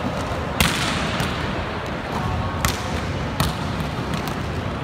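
Volleyballs being struck and bouncing in a large indoor sports hall: about five sharp slaps, the loudest about half a second in, each echoing in the hall over a steady background din.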